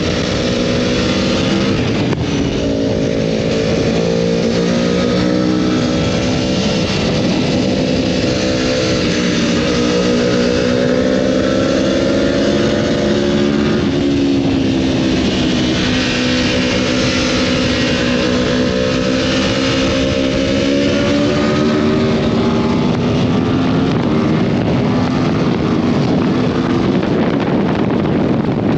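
Big sport motorcycle engine running under way, its note holding, then rising and falling several times with throttle and gear changes.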